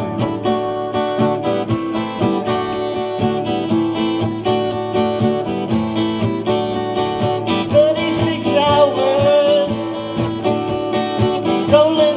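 Live music: a guitar-led band plays a song's instrumental intro, with plucked and strummed acoustic guitar. A wavering melody line comes in about two-thirds of the way through.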